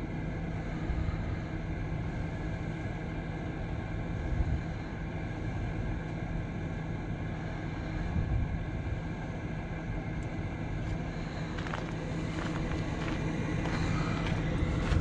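Vehicle engine idling steadily, a constant low hum. In the last few seconds there are footsteps crunching on gravel.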